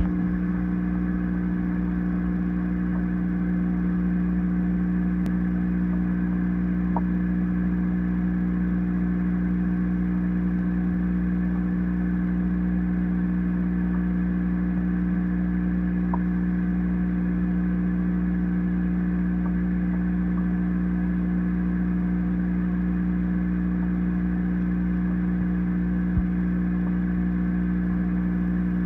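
Aquarium pump motor humming steadily with an electric drone, with one soft knock near the end.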